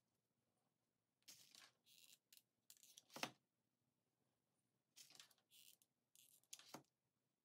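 Hands handling craft materials at a work mat: short, scratchy rustles and rubs in two clusters, a few seconds apart, with the sharpest, loudest one about three seconds in.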